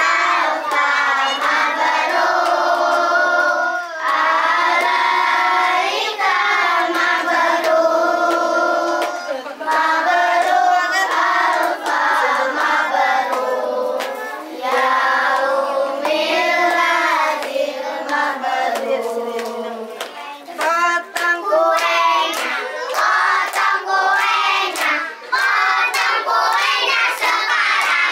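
A group of children singing together in unison, clapping their hands along; the clapping grows thicker after about twenty seconds.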